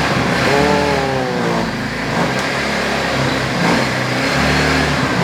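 Petrol engine of a two-seat go-kart buggy running, with a short rev whose pitch falls away about a second in.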